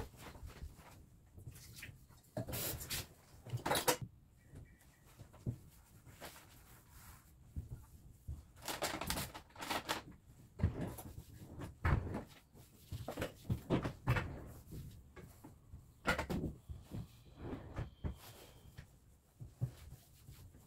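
A cloth being wiped over glossy kitchen cabinet doors in short, irregular strokes, with light knocks and handling noises in between.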